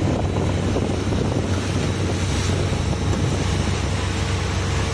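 Wind buffeting the microphone in a steady low rumble, with a haze of sea noise behind it.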